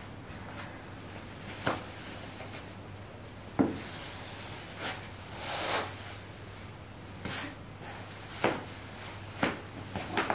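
Soft, scattered knocks and rustles of a person shifting hands, knees and legs on a rubber yoga mat during floor stretches, a handful of separate light thumps with a couple of brief soft swishes between them.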